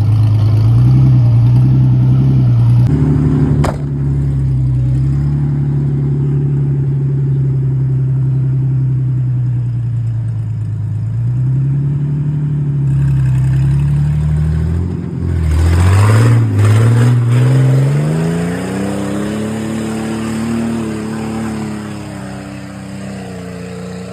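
Jeep Cherokee XJ engine running under load as it is driven, its revs wavering up and down. About two-thirds of the way in, the revs drop, then climb steeply to a peak and ease off again, with a brief burst of rushing noise as they rise.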